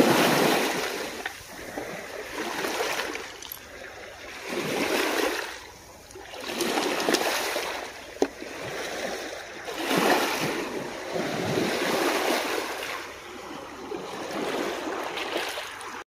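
Sea waves washing against shore rocks in repeated surges, one every two to three seconds. There is a single sharp click about halfway through.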